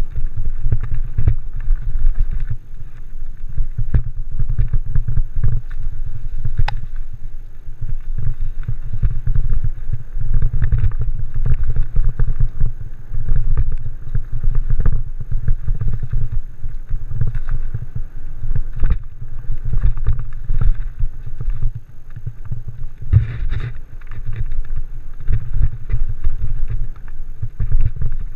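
Norco Torrent mountain bike riding fast down a dirt singletrack: the frame and parts rattle over the rough trail and wind rumbles on the microphone, with a few sharp knocks as the wheels hit bumps.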